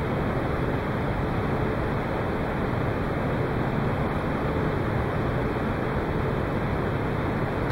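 Steady background noise of a large hall: an even hiss and low rumble with no distinct events.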